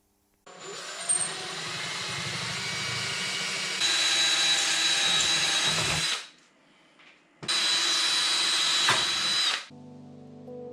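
Power drill running in two long runs, the first stepping up to a higher-pitched whine partway through. Background music comes in near the end.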